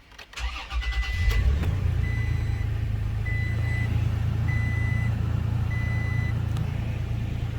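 Toyota Tacoma pickup engine cranked over briefly, catching about a second in and then idling steadily. Over the idle a high warning chime beeps five times, about once every 1.2 s.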